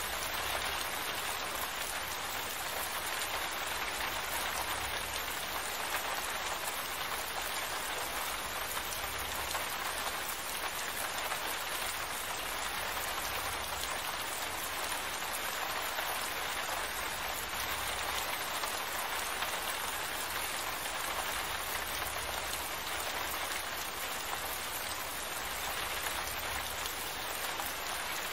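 Steady rain falling, an even, constant hiss of drops that neither builds nor eases.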